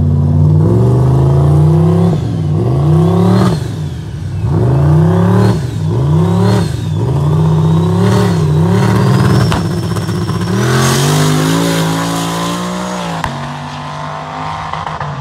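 Street-race car engine at full throttle from a standing start, its revs climbing and dropping again and again, with a high whine that follows the revs. About ten seconds in it makes one longer climb, then drops off and fades as the car pulls away down the road.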